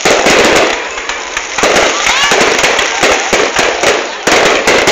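Fireworks going off in a dense, continuous crackle of rapid bangs that swells and eases every second or so.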